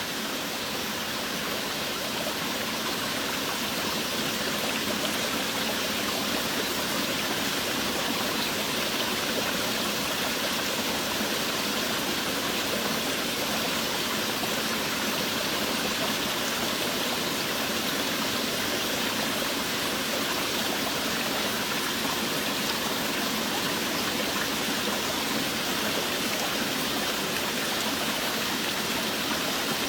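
Steady heavy rainfall: a continuous, even rushing hiss of many drops with no separate hits standing out.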